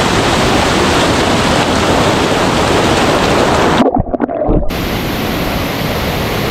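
Loud, steady rushing noise, briefly muffled for about a second some four seconds in.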